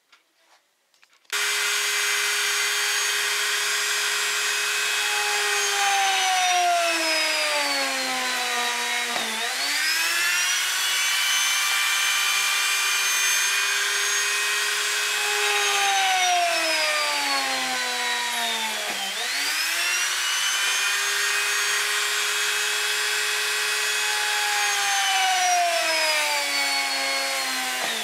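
Dremel rotary tool on a flexible shaft starts about a second in and runs with a steady whine. Three times its pitch sinks slowly over several seconds, then drops briefly and climbs quickly back up.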